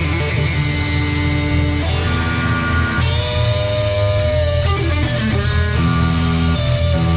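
Live rock band playing: electric guitar holding and bending notes over bass guitar and drums, with a held note that bends in pitch about three seconds in.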